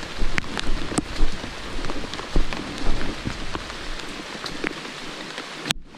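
Steady rain falling, with many sharp drops clicking close by throughout. The sound cuts out briefly just before the end.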